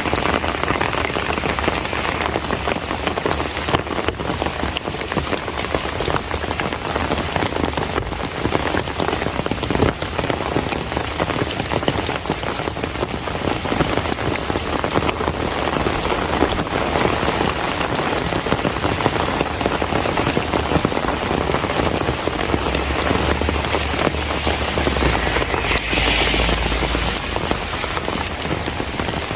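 Steady monsoon rain falling and pattering on surfaces, with many single drops ticking through it. A low rumble swells briefly near the end.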